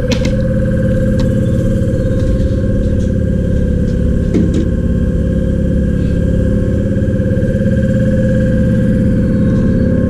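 A machine running with a steady, even hum at a constant pitch, with a few faint clicks over it.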